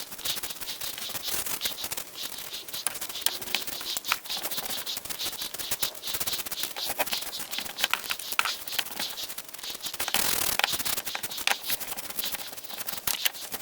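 Irregular scratchy rubbing with many small clicks and ticks, and a short louder stretch of hiss about ten seconds in.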